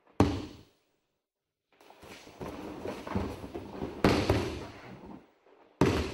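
Aikido partner's body hitting the tatami mat: a sharp thud just after the start, then scuffling on the mat with a heavy landing impact about four seconds in, and another hard thud near the end as he is taken down into a pin.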